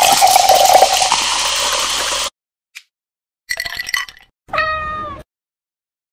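Grape soda poured from a glass jug over ice into a glass tumbler, hissing loudly for about two seconds. A spoon clinks in the glass a little later, and a single cat meow follows near the end.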